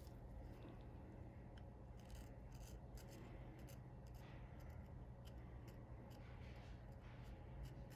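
Diamond-coated interproximal reduction (IPR) strip rasping back and forth between lower front teeth, a faint series of short scratches against the enamel as it wears down a tight contact between the teeth. A low steady hum sits underneath.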